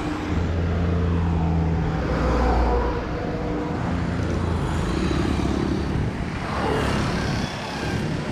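Road traffic at the roadside: engines of motor vehicles running past with a steady low hum, and another vehicle going by about six and a half seconds in.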